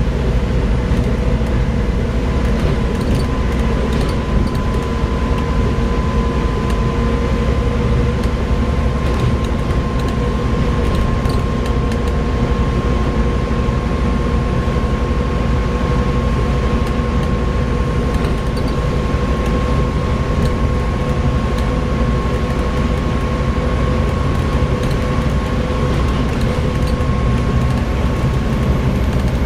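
Volvo B7TL double-decker bus running steadily, with a constant engine rumble, a steady whine that drifts slightly in pitch, and scattered light ticks and rattles.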